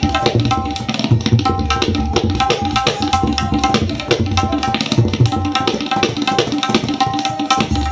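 Tabla played solo: fast, unbroken strokes on the right-hand dayan, ringing at one tuned pitch, mixed with deep swelling bass strokes from the left-hand bayan.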